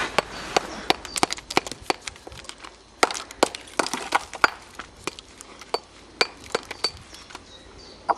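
Irregular sharp clinks and knocks of hard fired bricks and mortar, several a second with short gaps: bricks being handled and struck among loose brick rubble.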